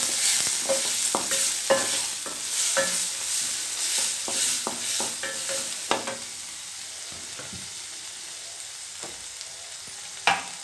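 Wooden slotted spatula stirring and scraping chopped onion and tomato frying in oil in a stainless steel kadai, its knocks on the pan carrying a brief metallic ring, over a steady sizzle. The stirring strokes come thick for about six seconds, then mostly sizzle, with one sharp knock near the end.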